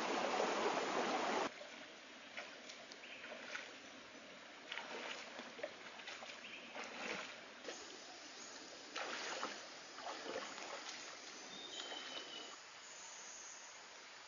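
Shallow rocky stream flowing, loud for the first second and a half and then quieter, with scattered irregular splashes of feet wading through the water.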